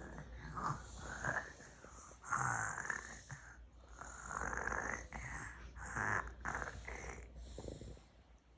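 A young child imitating snoring: a string of about six short, breathy snore sounds at irregular intervals, soft compared with the talk around them.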